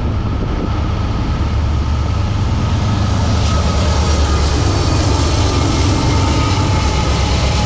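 Two GE AC44C6M diesel freight locomotives passing close by, with a steady deep engine rumble and wheels running on the rail. It gets a little louder midway through as they go past.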